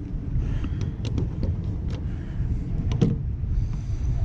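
Allen keys clinking and clicking against metal as they are tried on the unit's bolts: a handful of sharp clicks, a strong one about three seconds in, over a steady low rumble.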